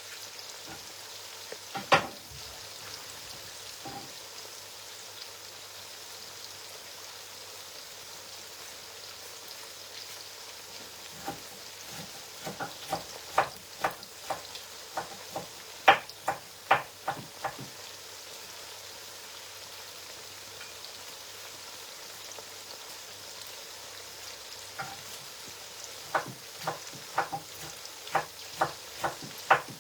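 Food sizzling steadily as it fries in hot red palm oil in a pot. Sharp clicks and knocks come in bunches, one about two seconds in, a run in the middle and another near the end, typical of a spoon striking the pot while stirring.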